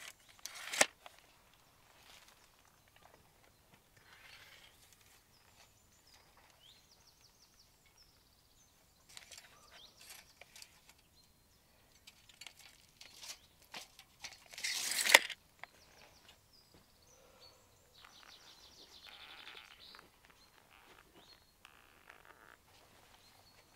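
Tape measure being pulled out and let back several times, the blade rattling as it slides. The loudest retraction, about fifteen seconds in, builds up and ends in a sudden snap.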